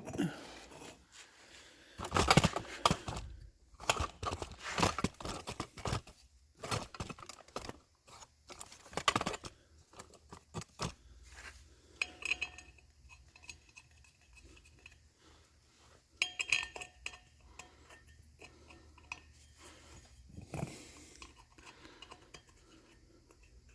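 Metal clinking and knocking as bolts and front brake parts are handled and fitted by hand at a car's wheel hub, in scattered bursts with brief metallic rings.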